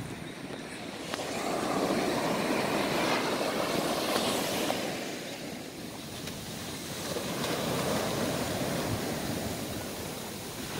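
Ocean surf: waves washing up the beach, the rushing noise swelling and easing twice.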